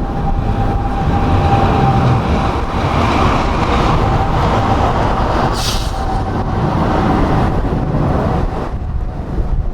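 Boeing 787 jet engines rumbling under power with a steady whine, mixed with strong wind buffeting the microphone. The whine fades near the end, and there is a brief high hiss a little past halfway.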